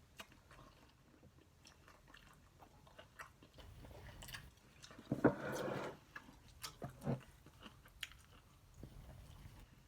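Close-up mouth sounds of a person chewing and biting food, with scattered small wet clicks. About five seconds in there is a louder, brief pitched mouth sound.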